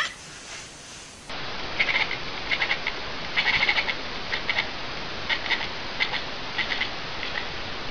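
A small animal making short, high chirping squeaks in quick clusters, repeated every half second or so over a steady hiss.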